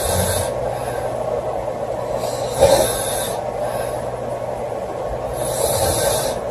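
A sleeping woman snoring: three snoring breaths about three seconds apart, over a steady background hum.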